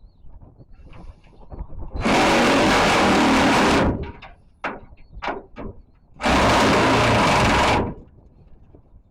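Two loud bursts of steady rushing hiss from a pressurised gas jet, each under two seconds, starting and stopping abruptly, with a few sharp taps in between.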